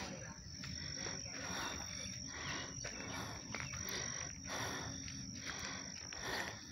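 Insects calling in a summer yard: a steady high-pitched trill under a chorus that pulses evenly, a little more than once a second.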